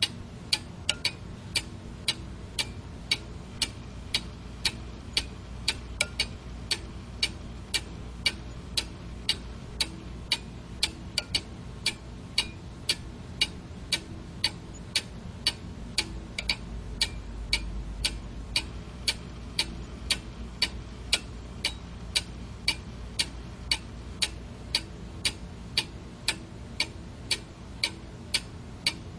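Clock ticking steadily, about two sharp ticks a second, over a faint low hum.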